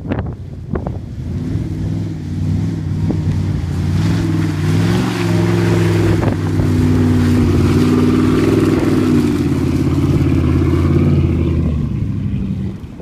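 1996 Dodge Ram pickup's engine revving hard as the truck spins its wheels through wet turf, throwing mud. The revs climb over the first few seconds, hold high and steady, then fall away near the end.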